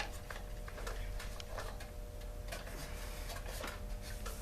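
Light, irregular clicks and taps, about one every half second to a second, from hand tools and plastic parts being handled while taking the housing off a Poulan Pro chainsaw, over a faint steady hum.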